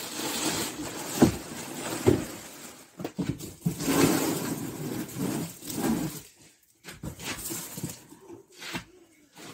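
Boxes being shifted and stacked on an attic floor: rustling and scraping, with two sharp knocks about one and two seconds in.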